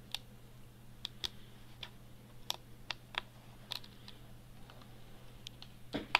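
Irregular light clicks and taps of fingers and fingernails on the plastic and metal insides of a Kindle Touch e-reader as its ribbon cable is pressed back onto its socket, about a dozen over a few seconds. A faint steady low hum lies underneath.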